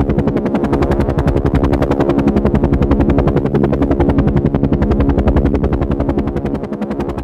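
Boeing CH-47 Chinook tandem-rotor helicopter in low flight: a rapid, even thump from its two rotors over a steady hum, getting somewhat quieter near the end.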